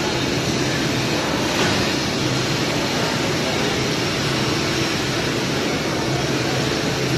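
Steady machine noise: an even hiss with a low hum underneath, unchanging in level, and a faint knock about a second and a half in.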